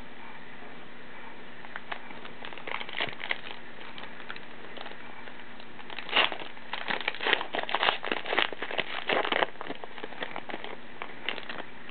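A foil trading-card pack wrapper torn open and crinkled by hand, with soft rustling of cards handled first and a dense run of crinkling from about halfway through.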